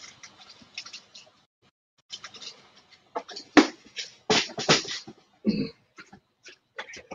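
Irregular clicks, rattles and knocks of plastic Lego parts bins and pieces being rummaged through, with a cluster of louder knocks about three and a half to five seconds in.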